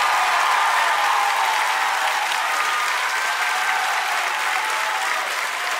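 Theatre audience applauding steadily at the end of a musical number.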